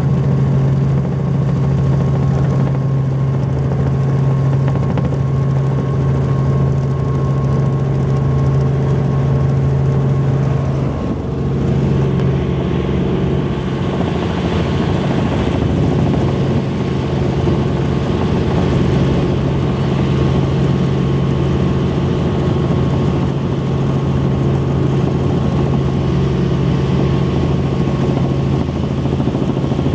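Helicopter in flight heard from inside the cabin: a loud, steady drone with a strong low hum and a faint high whine above it, shifting slightly about eleven seconds in.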